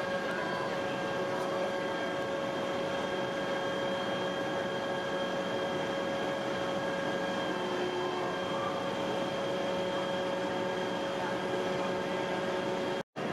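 Aerial ladder fire truck's engine and hydraulic pump running steadily while the raised ladder is worked: a constant mechanical hum with several high, steady whining tones. The sound cuts out for a moment near the end.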